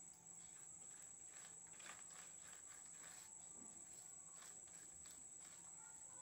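Near silence: a few faint, soft pats and smears of a hand spreading batter over colocasia leaves, over a steady faint high whine.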